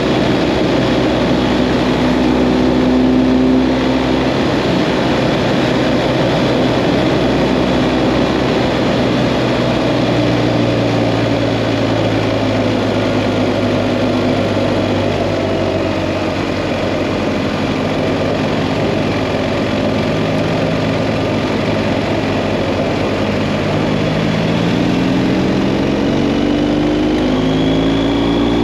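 BMW GS Adventure motorcycle engine running at road speed under a steady rush of wind. Its pitch sags slightly midway, then climbs near the end as the bike accelerates.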